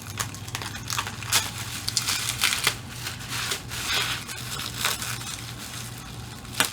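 Packaging crinkling and rustling in irregular bursts as small wrapped pieces are handled and unwrapped, over a steady low hum.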